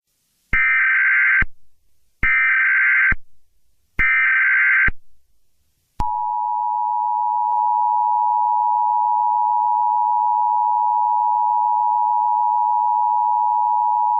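Emergency Alert System alert opening with three short electronic data bursts of the SAME header, about a second apart. The steady two-tone EAS attention signal follows, held for about eight seconds, then cuts off.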